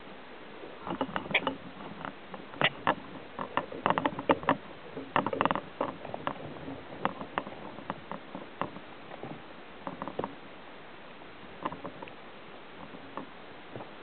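Male common grackle pecking and rummaging through sunflower seed in a metal feeder tray: irregular bill taps and seed clicks, thickest in the first half and thinning out after.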